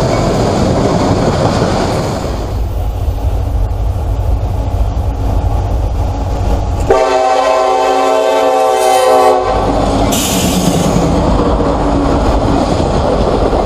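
Diesel freight train rumbling past, its wheels clicking over the rail joints. About seven seconds in, a locomotive horn sounds one long blast lasting about two and a half seconds.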